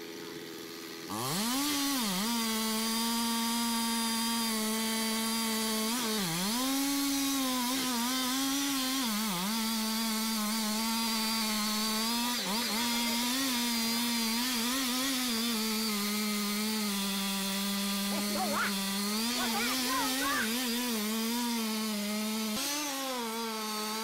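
Large chainsaw revving up about a second in, then running at full throttle as it saws through a big tree trunk. Its pitch sags and recovers several times as the chain bogs down in the wood.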